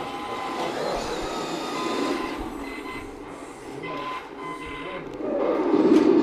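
Radio-controlled model tanks, a KV-1 and an M26 Pershing, driving: a steady mechanical whirr from their electric drive motors and gearboxes, with a faint whine through it.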